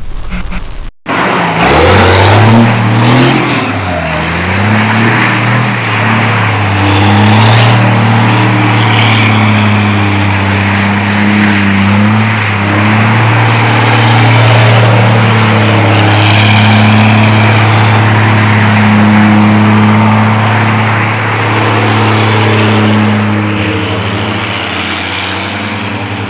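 Heavy semi truck engine running steadily, with the pitch rising and falling a couple of times in the first few seconds before settling into an even drone.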